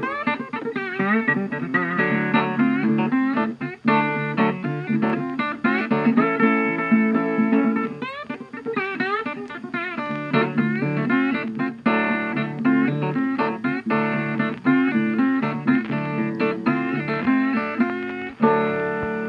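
Background music played on plucked guitar, a continuous run of notes and chords with a few notes sliding in pitch.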